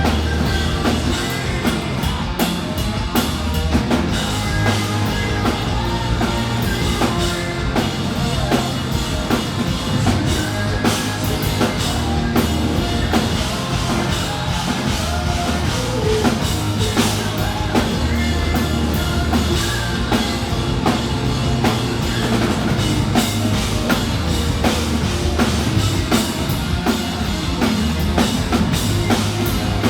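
Hard rock band playing live at full volume, a drum kit driving a steady beat under a dense wall of amplified instruments.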